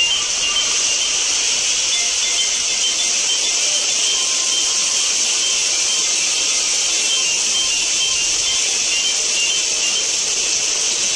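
Heavy downpour: a steady, even hiss of pouring rain that does not let up.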